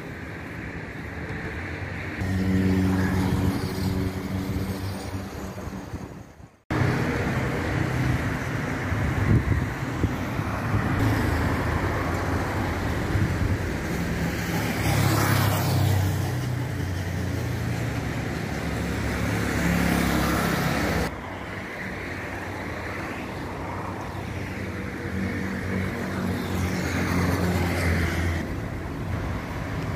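Road traffic on a busy avenue: car engines humming and tyre noise swelling as vehicles pass. The sound drops out abruptly for an instant about six and a half seconds in.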